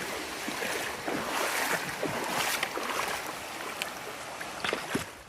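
Mountain stream rushing over rocks, with scattered short splashes through it.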